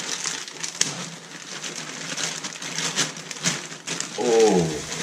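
Plastic shopping bag crinkling and rustling as hands rummage inside it. Near the end, a short voiced sound falls in pitch.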